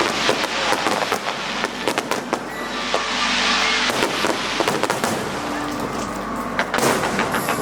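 Aerial fireworks going off in quick succession: a dense run of sharp bangs and crackles, with a swell of hissing crackle about three seconds in. Music plays underneath.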